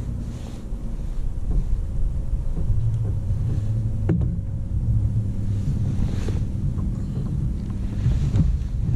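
Wind buffeting the microphone in a low, steady rumble, with a faint hum underneath and a single sharp knock about four seconds in.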